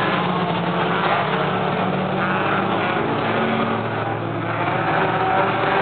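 Several four-cylinder stock cars racing on a dirt oval, their engines running hard at high revs together, heard from the grandstand.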